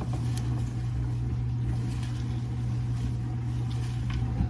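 A steady, loud electric motor hum from a kitchen appliance, which stops near the end.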